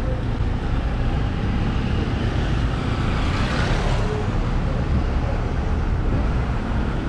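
Street traffic: a steady low engine rumble with road noise, swelling briefly about three and a half seconds in.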